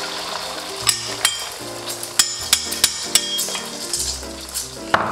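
Beaten egg sizzling as it hits smoking-hot oil in a wok, with sharp clinks and taps of a spoon on the egg bowl and wok from about a second in. Background music plays underneath.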